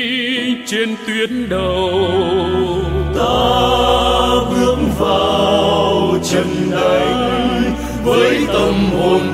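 Music: a Vietnamese patriotic song, with sung voices over a full orchestral accompaniment and a steady bass line.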